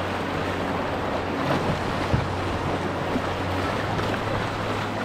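River rapids rushing and splashing around a canoe's hull as it is paddled through a riffle, with wind rumbling on the microphone. A single light knock about two seconds in.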